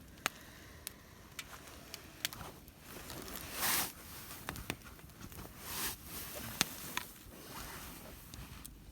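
Campfire crackling with scattered sharp pops, and two brief swishing noises a little past the middle.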